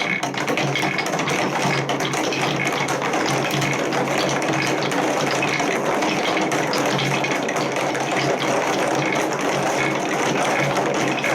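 Many balls rolling and clattering together down plastic TrixTrack marble-run wave slopes, a dense, continuous rattle of small clicks.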